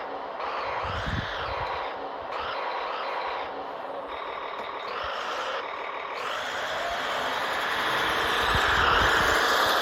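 Radio-controlled tracked snow vehicle (modified Kyosho Blizzard) driving, its electric motor and gearbox whining in pitch that rises and falls repeatedly with the throttle, with a few low knocks from the tracks. The whine builds toward the end.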